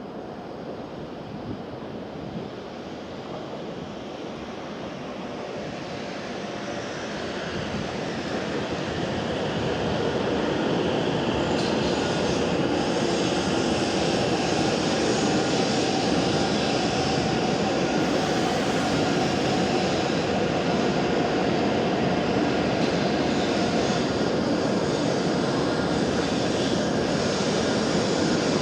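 E7 series Shinkansen train running along the platform: a steady rushing and rumbling noise that grows louder over about the first ten seconds and then holds level.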